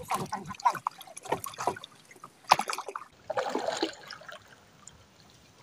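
Water trickling and splashing in irregular bursts as a drifting gillnet is worked over the side of a boat, with a longer, heavier splash about three and a half seconds in.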